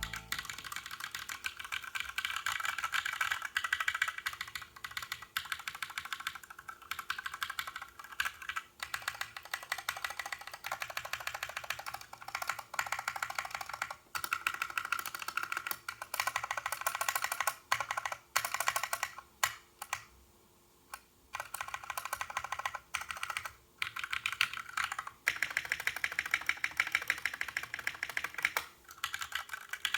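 Typing on a custom 60% mechanical keyboard with lubed Glorious Panda tactile switches on a brass plate in an aluminium case, under PBT keycaps: a fast, steady run of keystroke clacks, with a short pause about two thirds of the way through.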